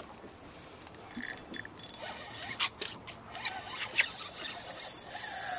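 Spinning reel being worked while fighting a hooked fish: scattered squeaks and a run of sharp clicks about two and a half to four seconds in.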